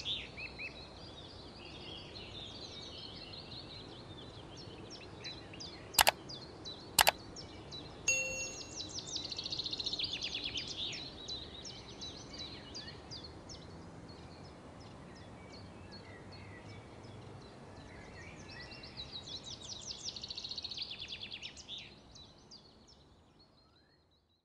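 Tortilla wraps toasting in a grill pan with a low, steady sizzle, while birds sing rapid trills that come and go in the background. About six and seven seconds in come two sharp knocks a second apart, the spatula striking the pan, with a brief ring after them; the sound fades out near the end.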